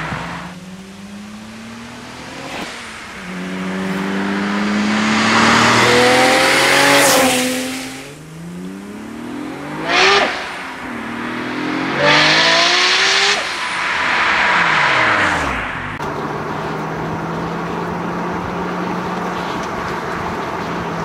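Nissan Skyline R33 GT-R's twin-turbo straight-six revving hard through the gears, its pitch climbing and dropping back at each shift. About halfway through the car passes close by with a sharp loud peak, and its note then sweeps steeply down as it goes away. Near the end it settles into a steady, even drone.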